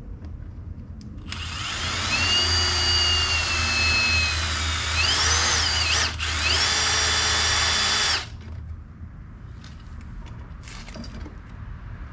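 Power drill drilling a hole for a fan-motor mounting screw. It starts about a second in, its motor whine sagging and rising with the load, pauses briefly about six seconds in, then stops about eight seconds in.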